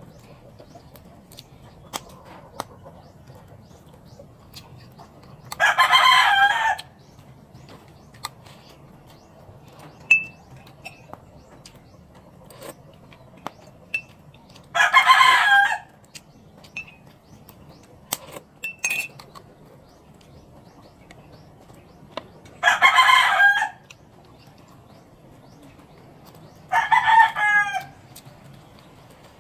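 Rooster crowing four times, each crow about a second long and several seconds apart, with faint clicks of eating by hand in between.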